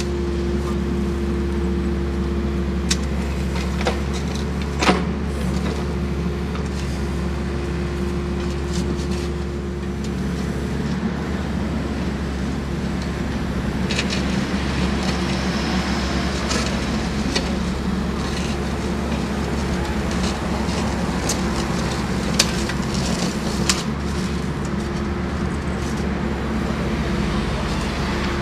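Mini excavator's diesel engine running steadily at a working hum, with a few sharp clinks of metal tools on stony soil as the trench is dug.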